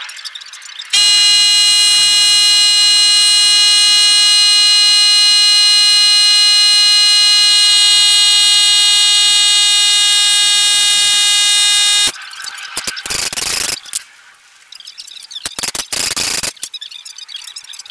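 A loud, steady, buzzer-like tone starts suddenly about a second in, holds one unchanging pitch for about eleven seconds and cuts off abruptly, followed by a few bursts of rough scraping noise.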